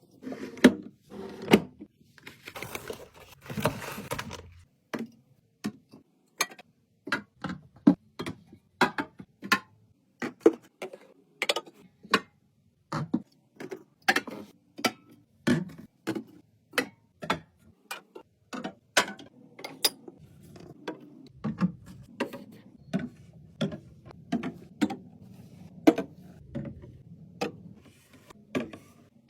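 Restocking sounds: items and containers handled and set down one after another, making sharp clicks and knocks about one or two a second, with a few seconds of rustling near the start.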